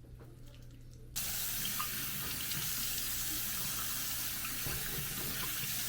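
A tap is turned on about a second in, and water then runs steadily into a sink.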